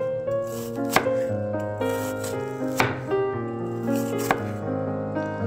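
Chef's knife slicing down through a half onion and striking a wooden cutting board, three sharp cuts about one and a half seconds apart.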